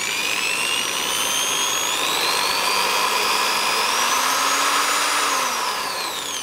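ProEkco EP6411 700 W electric polisher running free with a sanding disc fitted: a steady motor whine that rises in pitch over the first few seconds, holds, then falls near the end as the speed dial is turned down.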